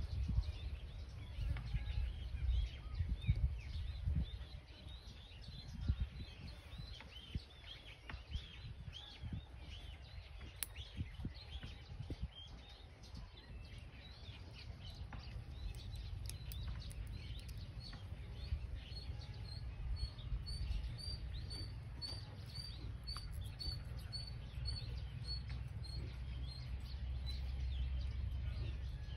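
Small birds chirping, with one repeating a short high note about twice a second for several seconds in the second half, over a low rumble.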